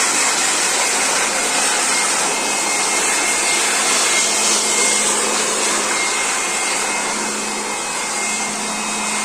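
Handheld electric air blower running steadily, a continuous rush of motor and blown air.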